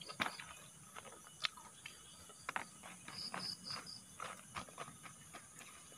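Faint high-pitched insect chirps in short, evenly spaced pulses, with scattered soft clicks and rustles close by.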